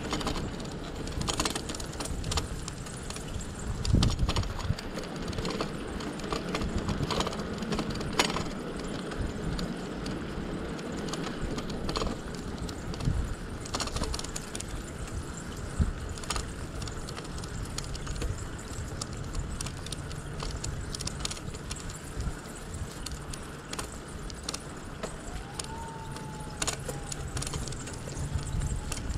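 Bicycle rattling and clicking as it rides over pavement, with steady tyre and wind noise underneath.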